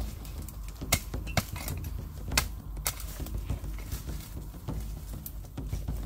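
Twigs and branches cracking and snapping in dense thorny undergrowth as it is pushed through and hacked with a sickle: about half a dozen sharp, irregular cracks over a low rustling rumble.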